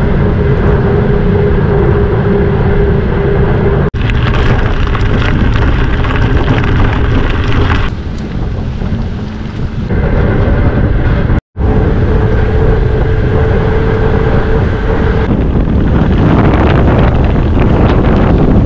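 Heavy wind buffeting on a bike-mounted camera's microphone while cycling at speed, with steady tyre noise from rolling over asphalt and then gravel. The sound breaks off abruptly twice where clips are joined.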